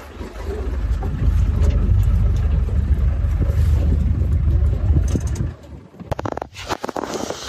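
Safari game-drive vehicle on the move, a loud low rumble that drops away about five and a half seconds in, followed by a run of rapid clicks and rattles.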